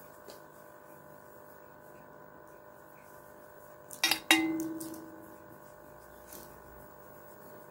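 Low background in a small room, then about four seconds in two sharp metallic clinks, the second ringing on and fading over about a second, as of a utensil striking steel kitchenware.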